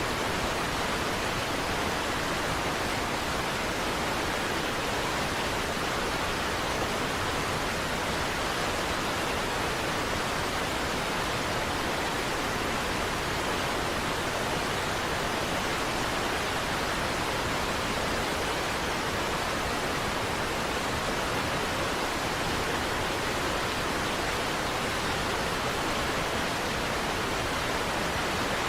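Niagara Falls waterfall, a steady, unbroken rush of falling water at an even level.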